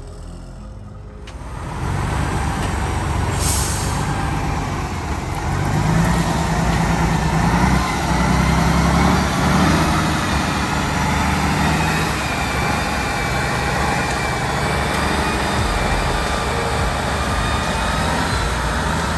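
Tatra eight-wheel trial truck's diesel engine running hard as the truck climbs and crosses rough ground. It comes in loud about a second in and swells louder in the middle. There is a brief high hiss about three seconds in.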